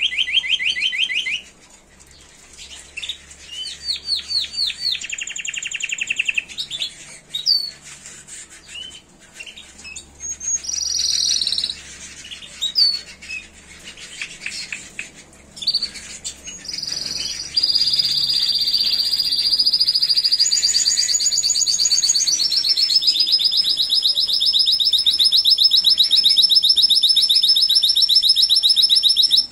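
Caged Timbrado Español canary singing. First come short bursts of rapid trilled notes with pauses between them, then, a little past halfway, a long unbroken rolling trill that shifts pitch a couple of times and runs on for about twelve seconds.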